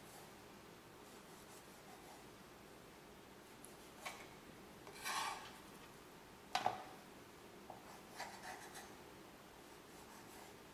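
Kitchen knife cutting beef short rib along the bone on a plastic cutting board: a few brief scrapes and rasps of the blade, with one sharp tap about six and a half seconds in, the loudest.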